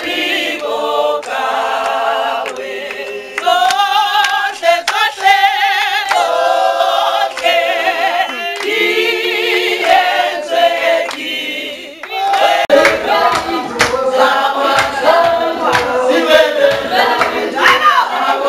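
A group of adults singing together without instruments, several voices in harmony with a strong vibrato. About twelve seconds in it cuts to more group singing with hand clapping.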